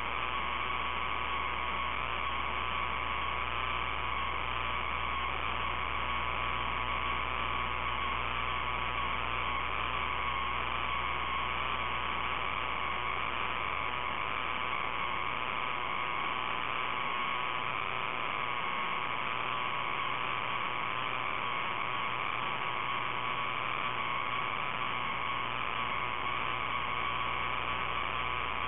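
Steady electrical hiss and hum on the audio feed, with a constant thin whine over it; the low hum drops out about halfway through.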